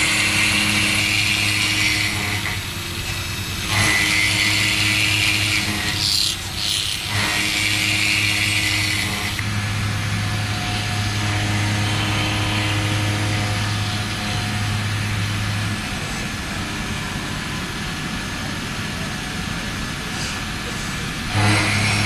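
WFL M60 MillTurn machining centre running while cutting a crankshaft: a steady machine hum with stretches of high hissing cutting noise that start and stop abruptly, steadier in the second half.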